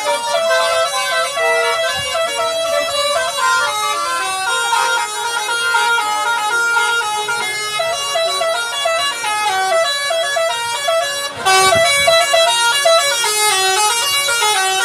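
Bus-mounted telolet basuri horn playing a Pakistani-style tune: a long, fast run of stepped notes with no break. It gets louder about eleven seconds in.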